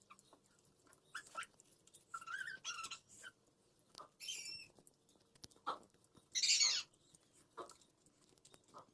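Wet chewing and slurping mouth sounds of someone eating juicy pineapple pieces, coming in short separate bursts. The loudest slurp comes about six and a half seconds in.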